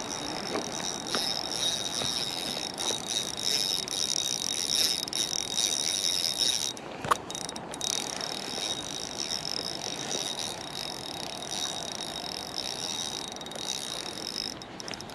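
Spinning fishing reel ratcheting steadily while a hooked trout is played on ultralight tackle, with one sharp click about seven seconds in.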